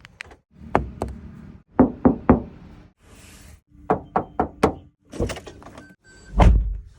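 Knuckles knocking on the body panels of a 2022 Maruti Suzuki Baleno to test its build quality: a series of sharp knocks, some in quick runs of three to five, then one heavier, deeper thud near the end.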